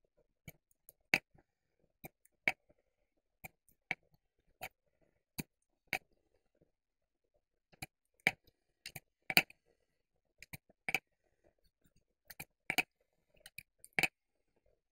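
Irregular sharp clicks and taps, one or two a second and some in quick pairs, from a thin wooden stick and a plastic glue jar being handled on a paper-covered table while glue is applied.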